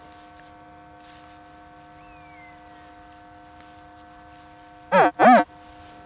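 Minelab CTX 3030 metal detector sounding two short, loud target signals about five seconds in, each a tone that rises and then falls in pitch, as metal passes over the small coil. Under it a faint steady hum of several tones.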